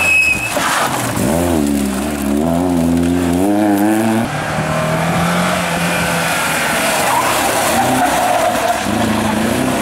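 Rally cars taking a tight hairpin. A Volkswagen Golf Mk1's four-cylinder engine is revved up and down through the bend. Then, after an abrupt change about four seconds in, a second rally car's engine runs more steadily with tyres skidding on the loose surface, its revs climbing near the end.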